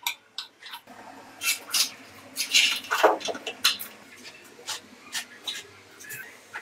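Scooter parts being handled and fitted by hand: a string of irregular metallic clicks, taps and scraping rubs, loudest around the middle. The sounds come as the steering column is seated in its greased ball-bearing headset and a control cable is pushed through the frame.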